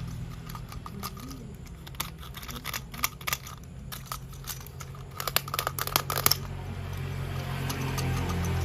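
Irregular small clicks, taps and rustles from plastic toy train parts and packaging being handled, with a quick cluster of clicks a little past the middle, over a low steady hum.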